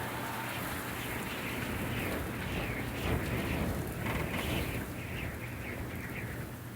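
Winter wind blowing outside a cabin window, heard from inside: a steady rushing with gusts rising and falling, over a low steady hum.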